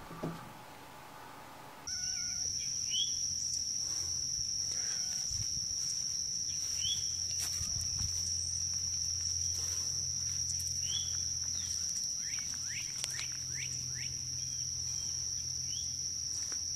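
A steady, high-pitched drone of insects with scattered short chirps over it. It starts about two seconds in, after a brief quiet stretch.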